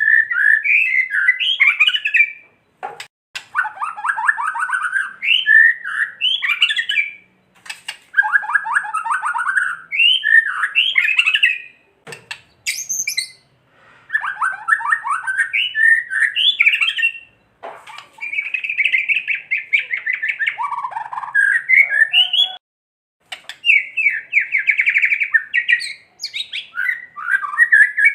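White-rumped shama (murai batu) giving harsh, rapidly pulsed rattling 'kretekan' calls mixed with whistled song notes, in about seven phrases of a few seconds each with short pauses between. This rattling is the agitated, fighting call of the shama.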